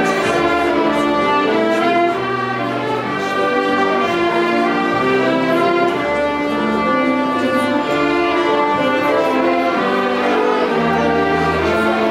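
Children's violin ensemble playing a dance tune in held, singing notes, with low bass notes sounding beneath.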